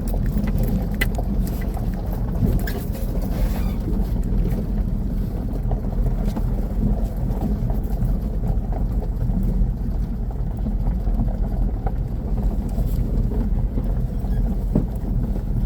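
Off-road vehicle's engine running steadily at low speed as it drives down a rough wash. Scattered knocks and rattles come from the tyres and body over the rocky ground, mostly in the first few seconds.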